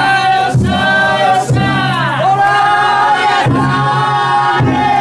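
Men's voices singing a drawn-out festival boat song in long held notes, with a low drum beat every second or two.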